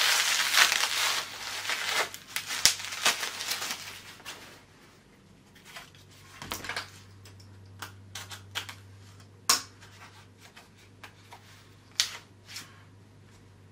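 Plastic bubble wrap crinkling as it is pulled off a small package for the first four seconds or so, then scattered light clicks and scrapes as the taped cardboard card holder inside is handled.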